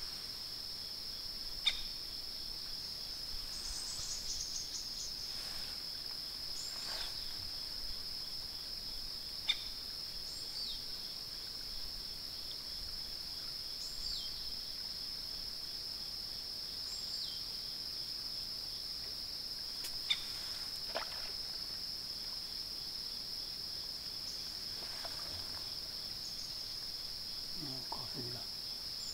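A steady high-pitched insect drone, crickets or similar, runs throughout. Short falling chirps and a few sharp clicks sound now and then, about three of them clearly louder.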